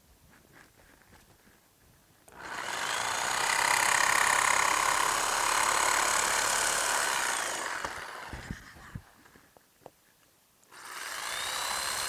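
A power tool running twice, starting suddenly each time: a long run of about six seconds that fades out, then a second run near the end.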